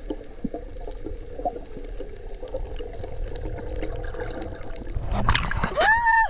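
Water trickling and sloshing. Near the end comes a loud, short call that rises and falls in pitch.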